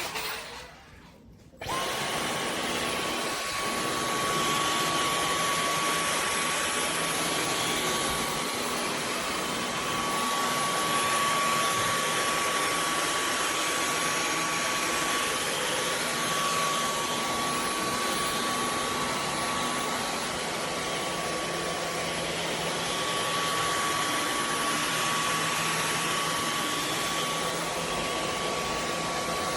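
Dyson V15 Detect cordless stick vacuum switching on about two seconds in, then running steadily: a rush of air with a steady high whine.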